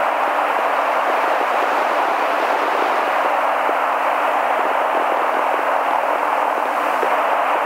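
Steady FM radio static from an amateur radio receiver tuned to the AO-91 satellite downlink. No station is coming through, so the open channel gives only even hiss.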